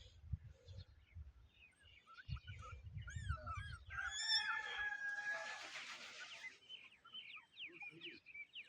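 Birds chirping repeatedly in short arched and falling notes, with one longer drawn-out call about four seconds in.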